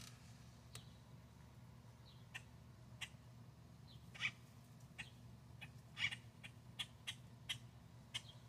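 Grackle chicks calling: about a dozen short, sharp calls, coming closer together in the second half, over a faint low hum.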